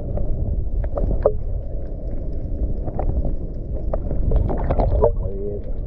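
Steady low rumble of wind buffeting the microphone, mixed with water lapping against a paddle board and scattered small knocks. A brief voice comes in about five seconds in.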